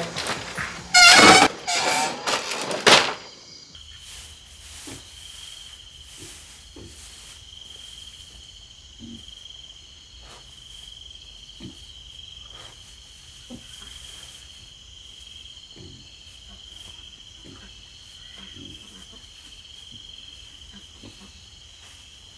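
A few seconds of loud knocking and clattering, then crickets chirring steadily at night: one unbroken high trill. Faint short low sounds come about every second under the trill.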